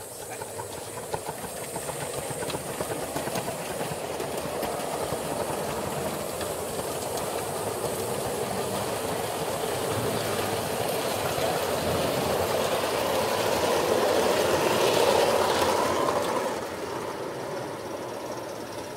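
Gauge 1 model steam train running on the track: wheels rattling over the rails with a hiss of steam. It grows louder to a peak near the end, then drops off sharply.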